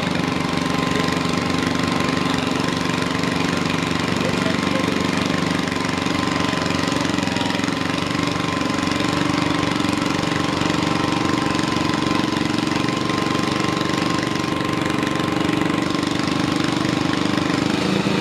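Garden pulling tractor's engine idling steadily with a rapid, even firing beat.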